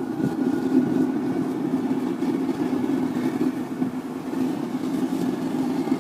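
Forced-air propane burner firing a small melting furnace, fed at 10 psi: blower and flame make a steady, low rushing noise.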